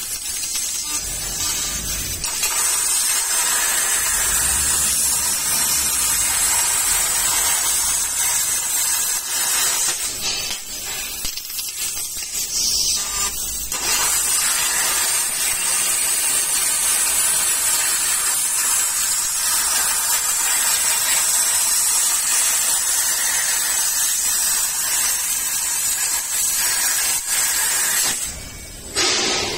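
20 kW fiber laser cutting head cutting 22 mm plate with oxygen assist gas: a loud, steady hiss of the gas jet through the cut. The hiss softens for a few seconds around the middle and dips briefly near the end.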